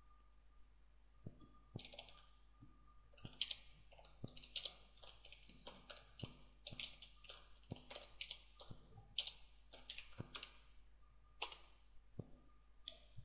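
Faint computer keyboard typing: an irregular run of key clicks from about two seconds in until about eleven seconds, then a single keystroke near the end.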